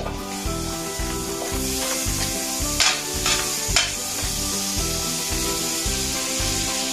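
Food sizzling in melted butter in a pan as it is sautéed and stirred, with a few short scrapes of the utensil against the pan about three seconds in. Background music with a steady beat plays throughout.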